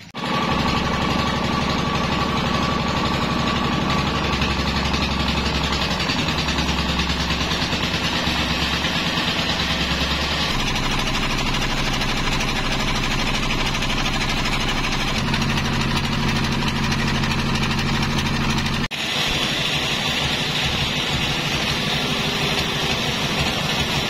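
Band sawmill's drive machinery running steadily, a loud mechanical drone with a fast pulsing beat. The sound breaks off for an instant about three-quarters of the way through, then carries on.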